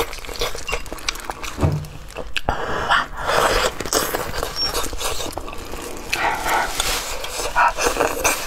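Close-up eating sounds from braised pig's trotters: irregular wet chewing, lip smacking and sucking as the meat is bitten and the fingers are licked.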